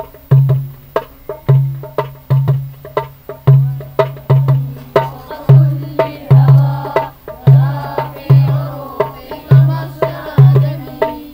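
A drum beating a steady rhythm of deep thumps, about two a second, with sharper taps between them. About halfway in, voices join and sing a melody over the beat.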